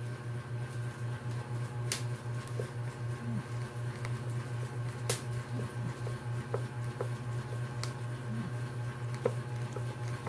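Hand screwdriver driving screws into a metal mounting plate on a tattoo armrest, giving a few sharp metal clicks about 2, 5 and 8 seconds in. A steady low hum that pulses several times a second runs underneath.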